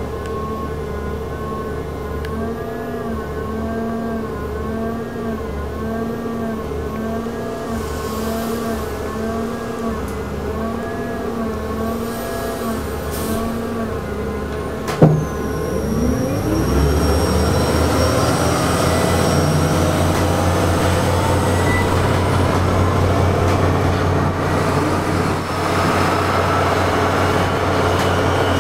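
Gasoline-electric series-hybrid transit bus, an ElDorado National EZ Rider II BRT, heard from inside. Its drive hums steadily with a warbling tone while it stands still. A single loud knock comes about halfway. Then the drive whine rises in pitch as the bus pulls away and stays steady and louder as it runs along.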